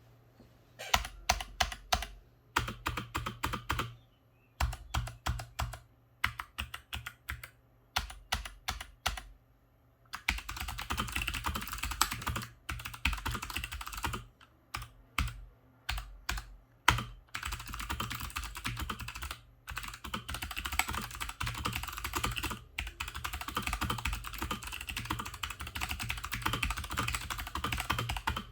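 MSI Vigor GK50 Elite mechanical keyboard with clicky Kailh Box White switches being typed on. For the first ten seconds or so the keys are pressed in short separate runs with pauses between them, then the typing turns fast and nearly continuous, with a few brief breaks.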